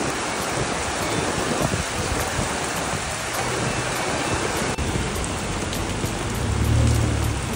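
Heavy downpour and floodwater running across a street: a steady, dense hiss. Near the end a low rumble swells briefly.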